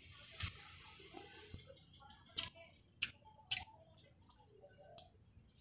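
Mouth sounds of someone chewing a mouthful of jengkol and rice: four short, sharp smacks and clicks over faint background hiss, the loudest two about three seconds in.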